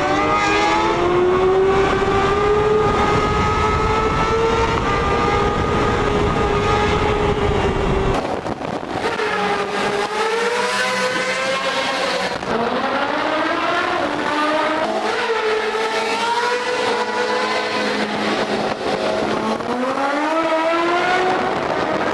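Motorcycle engine running hard at high revs. Its pitch creeps up for about eight seconds, changes abruptly, then climbs in several rising sweeps with a drop between each.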